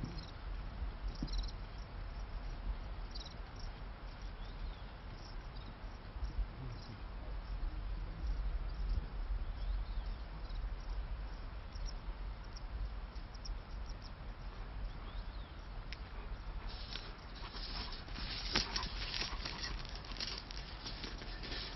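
Outdoor ambience: a steady low rumble with scattered faint, short, high chirps like insects. About three-quarters of the way in, a run of dense clicking and rustling sets in and grows louder.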